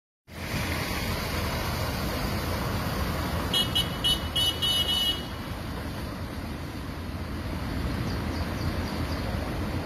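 A car horn beeps about five times in quick succession, starting about three and a half seconds in, as a pickup truck drives through floodwater. All the while there is a steady rush of wind and rain.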